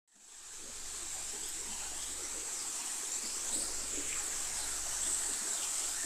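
Creek water running over a shallow riffle, a steady rushing that fades in at the start, with a few faint high chirps over it.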